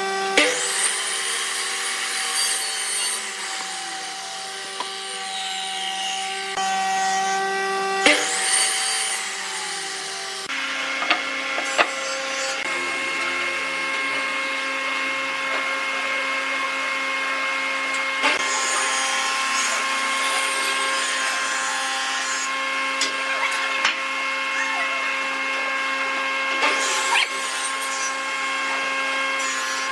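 Compound miter saw cutting through a turned wooden piece twice, about a second in and again near the eighth second, the blade spinning down after each cut. Then small taps and scrapes of a chisel and pencil on wood over a steady machine hum.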